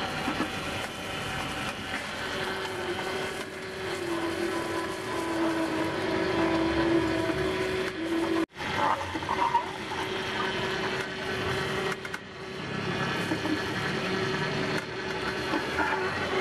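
Vertical cold-press (slow auger) juicer running with a steady motor hum. The hum dips slightly in pitch for a few seconds as produce is pressed down the chute. It breaks off sharply for an instant about halfway through, then resumes.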